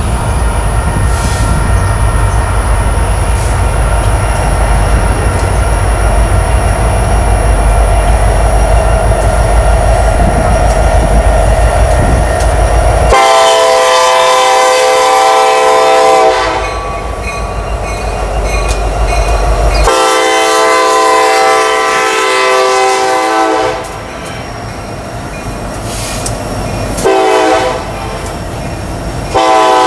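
A diesel freight train rumbles past, then a locomotive air horn sounds the grade-crossing signal: two long blasts, a short one, and a final long blast starting near the end.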